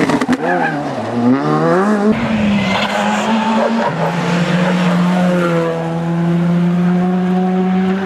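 Škoda Fabia R5 evo rally car's turbocharged 1.6-litre four-cylinder engine driven hard: the revs dip and climb again in the first two seconds, then the engine pulls long and steady with its pitch slowly rising.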